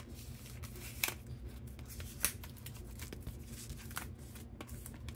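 Faint rustling of hands handling a cardboard folder and loosened plastic shrink-wrap, with a few light clicks and taps.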